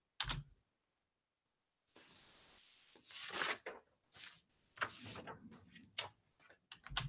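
Handling noise close to a microphone: a sharp click with a low thump just after the start, a stretch of hiss, then a run of short rustles and clicks ending in another thump.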